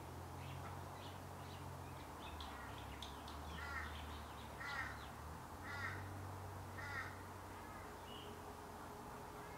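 A crow caws four times, about a second apart, over a faint low hum.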